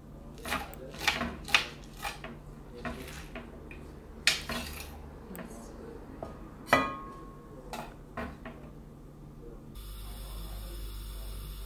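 Chopped spinach being scraped off a cutting board and tipped into a metal pot: a string of irregular clicks, knocks and scrapes, with one sharper knock about seven seconds in that rings briefly like metal. In the last two seconds a steady low hum takes over.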